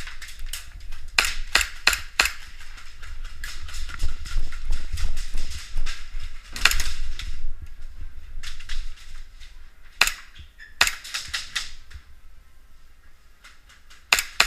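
Airsoft guns firing: sharp cracks in irregular single shots and quick strings, several in a row about a second in, around four to five seconds, again near ten to eleven seconds and once more near the end.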